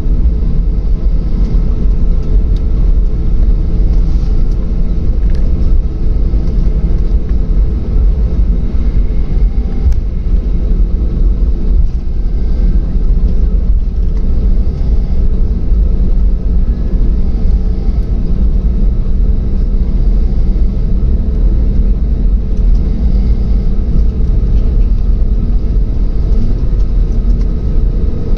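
Airliner cabin noise: a loud, steady low rumble of jet engines and airflow, with a faint steady hum over it.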